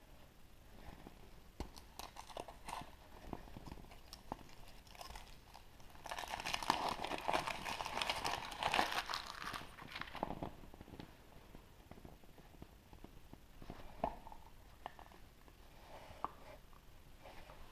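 A chocolate surprise egg being unwrapped and opened by hand: scattered small clicks and crackles, with a dense stretch of crinkling and crunching from about six to ten seconds in.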